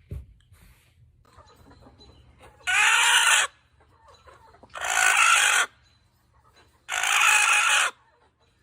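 A chicken calling loudly three times, each call about a second long and about two seconds apart.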